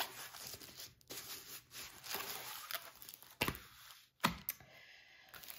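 Diamond painting canvas under its clear plastic film rustling and crinkling as it is rolled back by hand and pressed flat, with two louder crackles in the second half.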